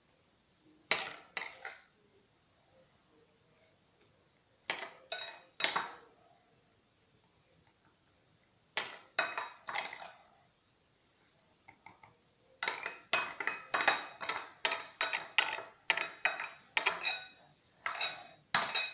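A metal knife working frozen tomato-juice pieces out of a silicone mold: short sharp clicks and clinks in groups of three or four. A quicker run of about two to three clicks a second fills the last six seconds.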